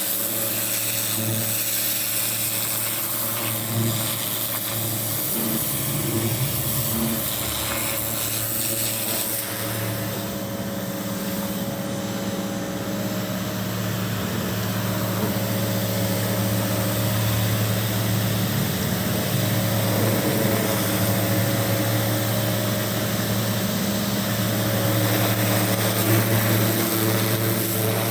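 Pressure washer running steadily: a motor hum with a broad spray hiss over it, washing down steps.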